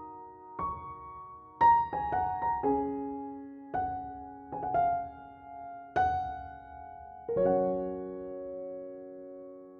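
Slow, gentle solo piano music: single notes and chords struck every second or so and left to ring, ending on a held chord that fades away about two seconds from the end.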